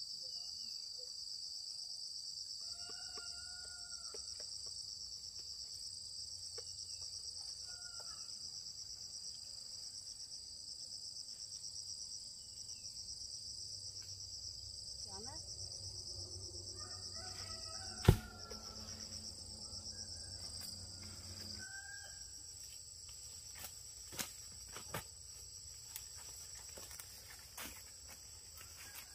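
A steady, high, pulsing chorus of insects, with a few short animal calls now and then. A single sharp knock comes about two-thirds of the way in, and a few fainter clicks follow near the end.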